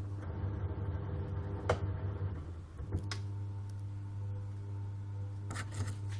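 Samsung top-loading washing machine's motor running with a steady hum, driven by a newly fitted universal control module and turning normally. Two sharp clicks, a little under two seconds in and about three seconds in, with the low hum changing at the second click.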